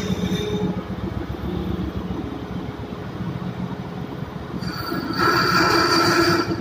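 Ship's electro-hydraulic ram-type steering gear running with a steady machinery hum and a low drone. About five seconds in, a louder, high-pitched whine joins it.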